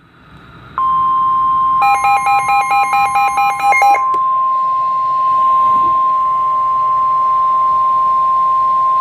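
NOAA Weather Radio warning alarm tone: a steady high tone near 1 kHz that starts about a second in and holds, with rapid pulsed beeping over it for about two seconds. The tone signals that a warning message, here a severe thunderstorm warning, is about to be read.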